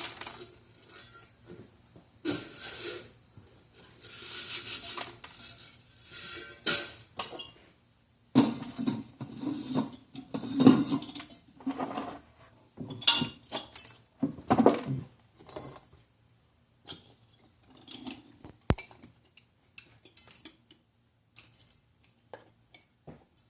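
Bird feeder being refilled and handled over a seed-catching bucket: irregular clinks, knocks and rattles, with a sharp click late on.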